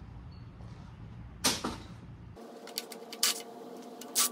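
Hand tools and loose metal engine hardware being handled: one short, loud metallic clank, then a couple of sharp clicks and knocks as the valve-cover bolts and harness bracket are taken off.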